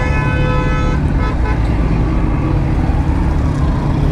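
A vehicle horn sounds steadily for about a second, then gives two or three short toots, over a steady low rumble of engines and road traffic.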